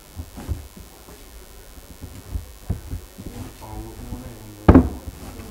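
Risen naan dough being knocked back by hand in a stainless steel bowl, pressing the air out: soft, irregular thuds of dough against the bowl, with one louder slap about three-quarters of the way through.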